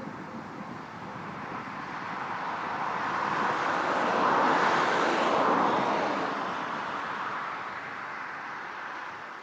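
Airbus A318 jet engines at takeoff thrust going past on departure: a broad jet roar that swells to its loudest about halfway through, then fades away.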